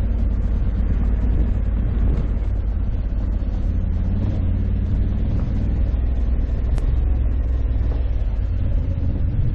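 2021 Honda Africa Twin 1100 DCT's parallel-twin engine running at steady, moderate revs while the bike rides a dirt road, over a heavy low rumble.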